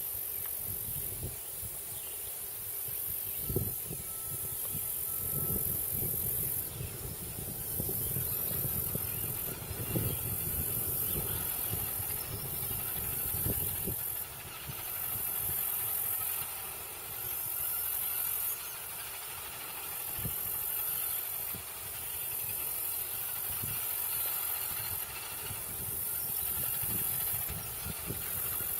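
Heavy road-construction machinery engines running with a low, rising and falling rumble, and a few short knocks.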